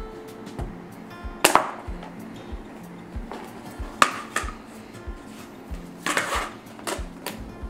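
Background music with a steady beat, over three loud, sharp cracks as a click-together floor tile is bent along a line scored with a utility knife, about a second and a half, four and six seconds in.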